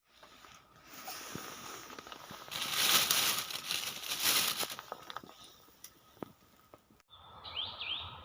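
A rushing noise with scattered clicks that swells and fades, then, after a break, a few short rising chirps from a small bird.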